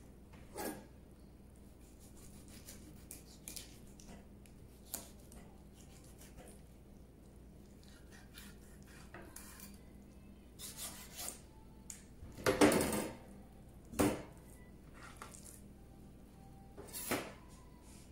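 A kitchen knife and utensils clinking, knocking and scraping against a cutting board and tray while a whole fish is filleted. The knocks are scattered and irregular, and the loudest cluster comes about twelve to thirteen seconds in.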